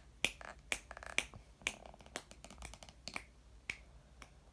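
Irregular sharp clicks and taps from hard objects being handled, about a dozen over four seconds, a few with a short ring.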